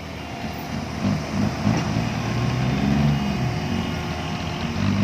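Dump truck's diesel engine running under load and revving unevenly, growing louder as it manoeuvres with its front wheels turned hard over.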